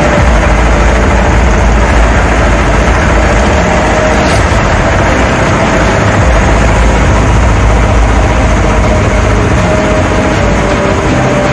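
A loud, steady engine drone with a heavy low rumble and a faint steady hum, unchanging throughout.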